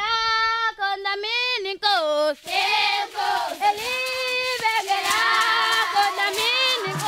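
Children's singing group performing a traditional song without instruments: a single high voice leads for about the first two seconds, then the group joins in.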